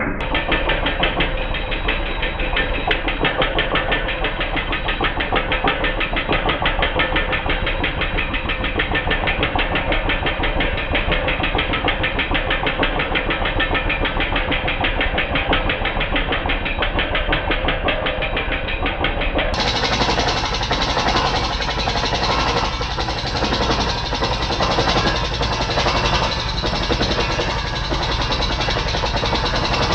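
Borewell drilling rig running under load: a rapid, steady knocking from the down-the-hole air hammer over the engine and compressor, with compressed air blasting rock cuttings and dust out of the hole.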